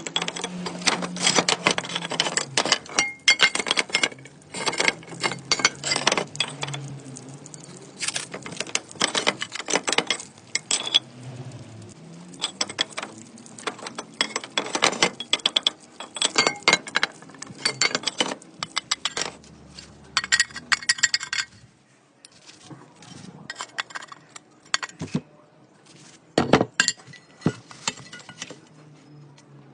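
Broken clay roof tile pieces being handled, giving rapid hard clinks and knocks, thinning out to sparser taps after about twenty seconds.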